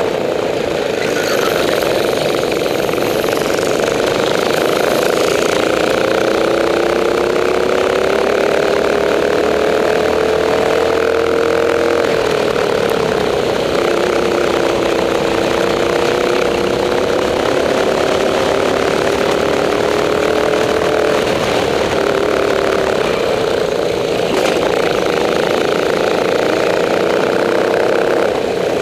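Rental go-kart engine at racing speed, heard from on board, its pitch climbing slowly as the kart accelerates and dropping sharply when the driver lifts off, about twelve seconds in and again around twenty-one seconds.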